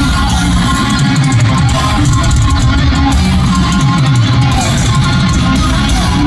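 Heavy metal band playing live at full volume: distorted electric guitars over bass and drums.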